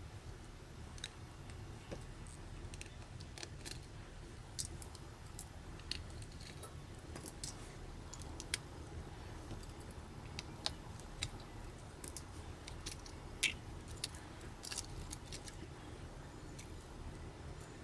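Small plastic and metal parts of a Nikon Coolpix AW110 compact camera clicking and tapping lightly and irregularly as the opened body and an internal module are handled, with one sharper click about two-thirds through.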